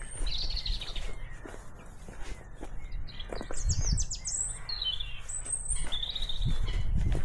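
Small songbirds chirping: a run of short, high calls and quick trills, several birds overlapping. Underneath is a low rumble with a few dull thuds.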